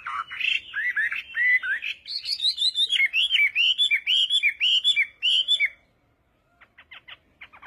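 A bird calling in a rapid series of short, sweeping chirps, each one bending up and then down in pitch. About two seconds in the notes shift higher and settle into a steady run of roughly three a second, then stop about six seconds in. A few faint short clicks follow near the end.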